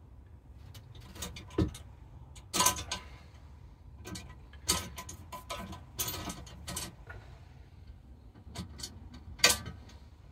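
Spinner targets clicking and clattering on their metal rod and against the sheet-metal target frame as they are handled and adjusted by hand. The knocks come irregularly in small clusters, some ringing briefly, with the loudest near the end.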